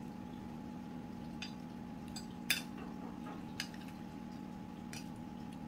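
A kitchen utensil clinking against cookware in a handful of separate knocks, the loudest about two and a half seconds in, over a steady low hum.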